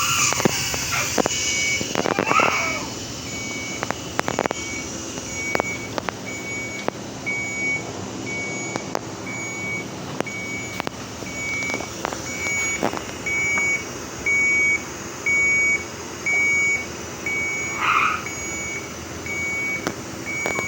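Hospital patient monitor alarm beeping steadily, one short high beep about every second, with scattered clicks and a few brief irregular sounds.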